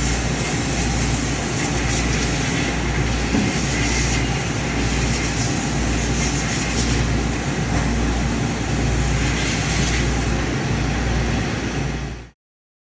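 Steady machinery noise with a strong low hum, typical of a running CNC machining center on a machine-shop floor, cutting off abruptly near the end.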